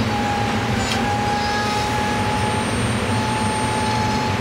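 SEPTA electric multiple-unit commuter train running past on the rails: a steady rushing noise of wheels on track with a thin high whine that drops out briefly past the middle, and one sharp click about a second in.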